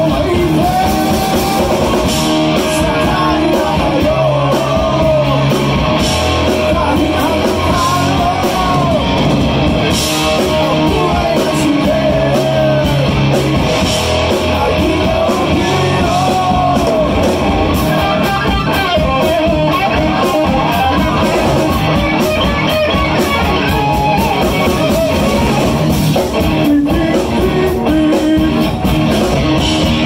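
Live rock band playing: overdriven electric guitars, bass and a drum kit, with a male singer's vocal over them, captured on a phone's microphone in the room.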